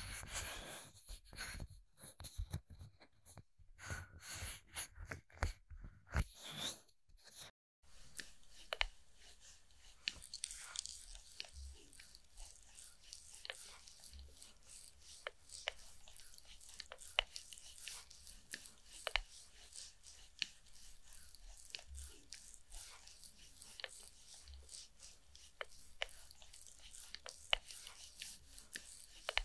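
Close-miked fingers rubbing and pressing around the ear of a mannequin head, giving dense crackly rubbing strokes. After an abrupt break about eight seconds in, a metal twin-ball facial roller is rolled over the mannequin's cheek and jaw: a soft steady hiss with scattered small clicks.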